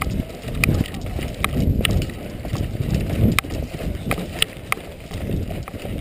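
A player on the move, with footsteps and gear jostling on a body-worn camera, and scattered sharp clicks of airsoft guns firing about every half second to second.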